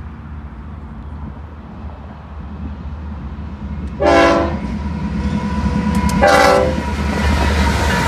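Air horn of BNSF GE ES44C4 locomotive #7199 sounding two short blasts, about four and six seconds in, over the low rumble of the approaching diesel locomotives that grows louder toward the end.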